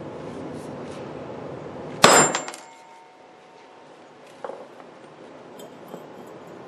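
A hammer strikes a steel socket set on the field coil pole piece of a Philco 90 radio speaker, once, a loud metallic clang with a short ring, driving the stuck pole piece out of the speaker frame. A much lighter metal knock follows a couple of seconds later.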